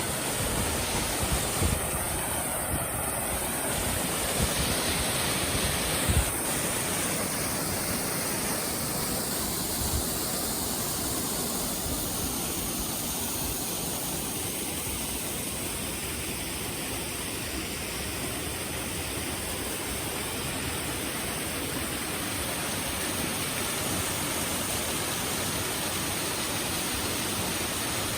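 Waterfall rushing as a steady wash of falling water, with a few dull knocks in the first six seconds or so.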